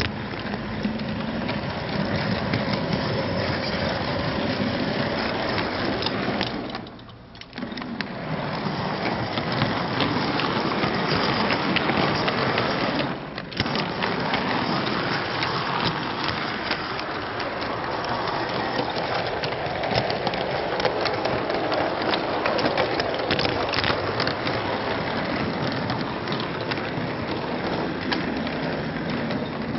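O gauge model train running, its wheels rumbling and ticking on the track, heard from a camera wagon riding on the train. The sound drops away for about a second around seven seconds in, and again briefly just after thirteen seconds.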